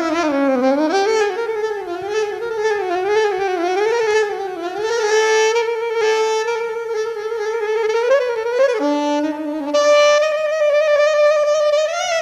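A saxophone playing a slow melody with a wide, wavy vibrato on the held notes. It drops to a low note about two-thirds of the way in, then climbs back up.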